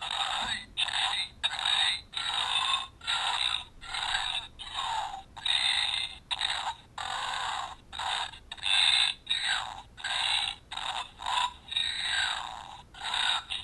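Burping keychain playing recorded burps from its small speaker, a quick string of short burps one after another with barely a pause between them. The burps are thin, with no low end.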